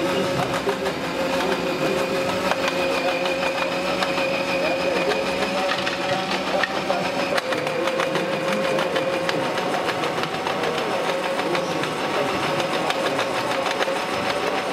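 Small electric motors and gear drive of a 1/16-scale RC jaw crusher model running steadily: an even whine with fast, light clicking.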